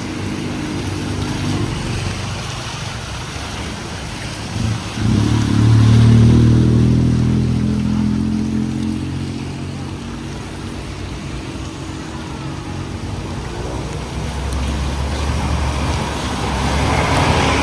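A motor vehicle's engine running close by, its hum swelling about five seconds in and slowly easing off, over a steady hiss of rain on the street.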